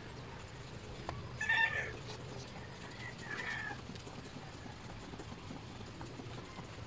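A chicken calls twice, a louder call about a second and a half in and a weaker one around three seconds in, over a steady low hum.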